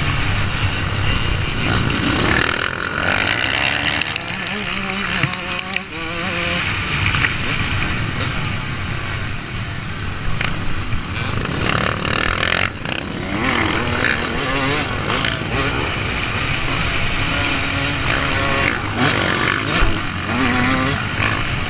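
Motocross dirt bike running hard at racing speed, its engine pitch repeatedly rising and falling with throttle and gear changes. Other bikes are close by, and wind rushes over the microphone.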